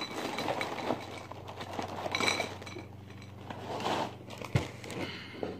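Dry Pop-Tarts cereal pieces poured from the box, rattling and clinking into a ceramic bowl. The pouring tapers off after about three seconds, and a single sharp knock follows about four and a half seconds in.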